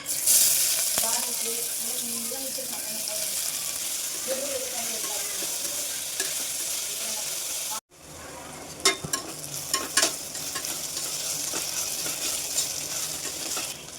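Oil sizzling in a cooking pan as food fries, starting abruptly and loudest at first. It breaks off for an instant about eight seconds in, then goes on with a few sharp clicks of a utensil stirring against the pan.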